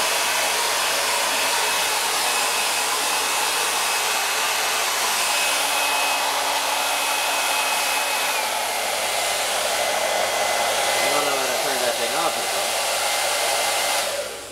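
Handheld hair dryer blowing steadily on a small wet dog's fur, a rushing sound with a thin whine that drops slightly in pitch about eight seconds in. It switches off near the end.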